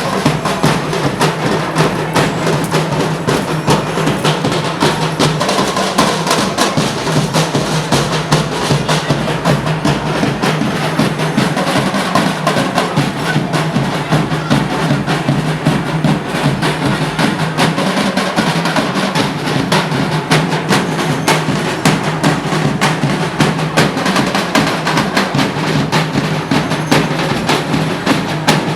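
Percussion music driven by dense, steady drumming that keeps going without a break.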